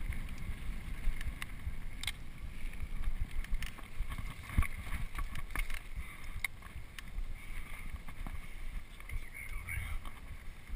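Mountain bike ridden fast over a dirt singletrack: wind rumbling on the microphone, with many short rattles and knocks from the bike over the rough trail.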